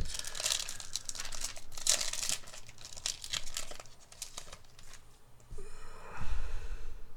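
Foil Yu-Gi-Oh booster pack wrapper being torn open and crinkled by hand, in a run of rustling strokes over the first few seconds, followed by quieter handling and a low bump near the end.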